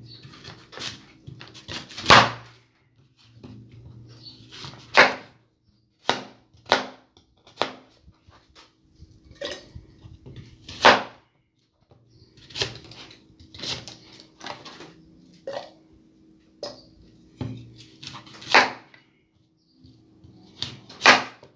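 A kitchen knife cutting apples into pieces: irregular sharp knocks and clicks, a few of them much louder, over a faint steady hum.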